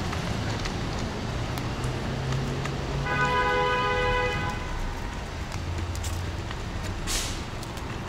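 City street traffic running past, with a car horn sounding once for about a second and a half near the middle. A brief hiss comes about seven seconds in.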